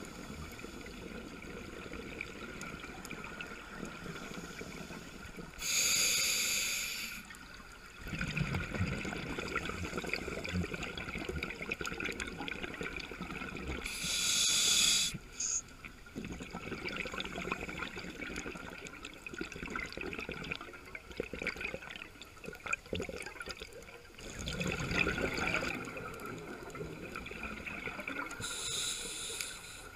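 Scuba diver breathing through a regulator underwater: three short, sharp hissing inhalations spaced several seconds apart, with gurgling exhaled bubbles between them, over a steady underwater hiss.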